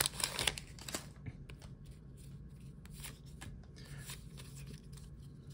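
Pokémon trading cards being slid and flicked through by hand, a run of soft card flicks and rustles, louder in the first second and quieter after.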